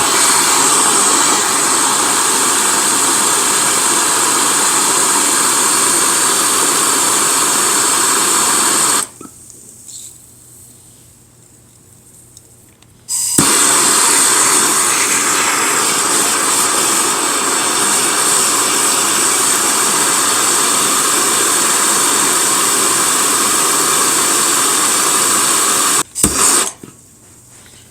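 Handheld gas torch flame hissing steadily as it heats a seized vise screw. It runs for about nine seconds, shuts off, then relights with a click and hisses for about twelve seconds more before cutting off.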